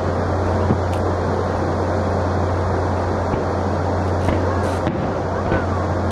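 Distant aerial fireworks bursting: a few scattered bangs and crackles over a steady low hum and rushing background noise.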